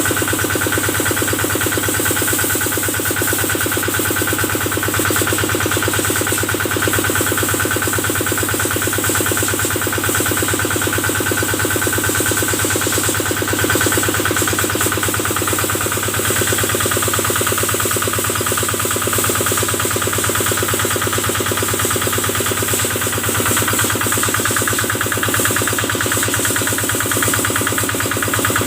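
Small Kubota diesel engine running steadily at a constant speed, driving the water pump used to wash the cattle.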